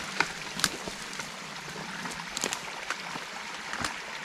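Creek water trickling steadily through a beaver dam, with several sharp clicks scattered through.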